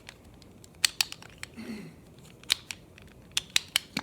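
Sharp plastic clicks and taps as the pieces of a puzzle ball fidget toy are handled and pushed into place, about seven clicks spread unevenly, three in quick succession near the end.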